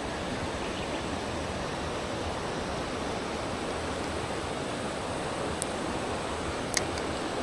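Mountain stream water rushing steadily over rocks. Two short sharp clicks come near the end, the second louder.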